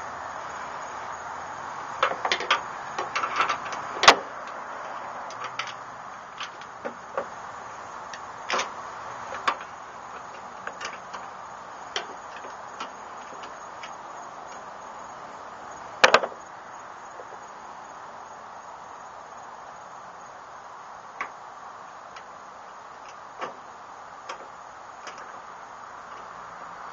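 Irregular small metal clicks and taps of a screwdriver, washer and snap ring against a Chevy S-10 tailgate strap bracket as the retainer ring is worked onto the pivot stud. They come in a cluster a few seconds in, with the sharpest click near the middle, over a steady background hiss.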